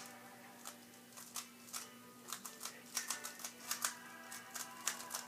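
A plastic 3x3 speedcube being turned by hand: a run of quick, irregular plastic clicks as its layers are turned. Faint background music plays underneath.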